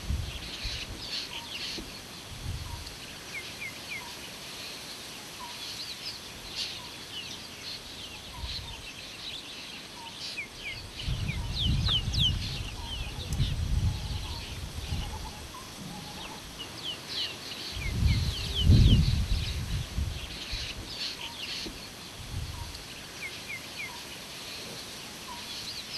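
Outdoor ambience of many birds calling: quick, repeated falling chirps and whistles, with a soft note repeated lower down. Low rumbling comes in for a few seconds about halfway through and again, louder, later on.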